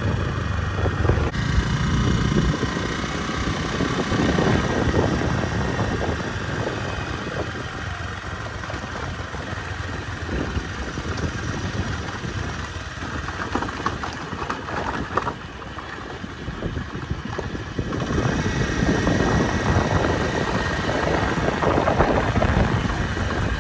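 A waterfall: the steady rush of falling water, dipping a little in the middle and swelling again late on.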